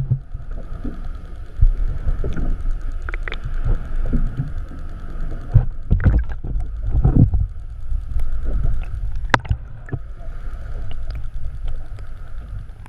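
Fishing charter boat at sea: a steady low rumble of engine and water with a constant higher hum, broken by scattered knocks and thumps on the deck, the loudest about six, seven and nine seconds in.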